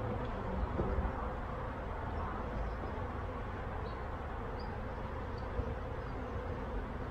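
Carniolan honeybees buzzing steadily around an opened hive, over a low rumble.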